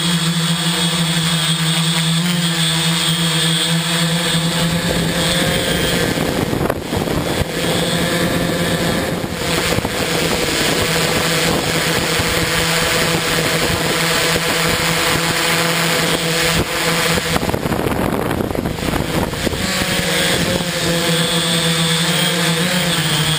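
Multirotor drone's electric motors and propellers running in flight, heard from the onboard camera: a steady hum that turns rougher and noisier for most of the middle, with the steady hum coming back near the end.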